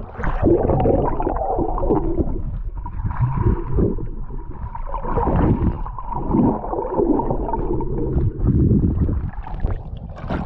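Muffled, gurgling underwater sound picked up by a GoPro Hero 8 action camera held under lake water, with water sloshing against the camera in uneven surges.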